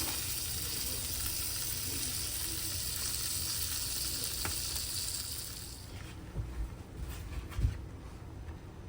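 Chicken pot pie filling of broth and cream sizzling in a hot pan. The sizzle cuts off about five and a half seconds in and is followed by a few low knocks, the loudest near the end.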